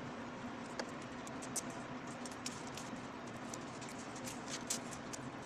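Light scattered clicks and rustles of foam tape being handled and pressed onto the rim of a subwoofer's basket, over a faint steady hum.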